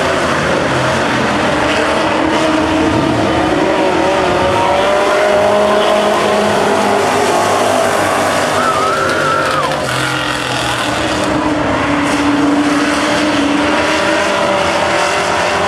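Several street stock race cars' V8 engines running at racing speed on a dirt oval: a dense, steady, loud mix of engines, their pitches wavering up and down as the cars circle and pass. One engine note rises and then falls away about nine seconds in.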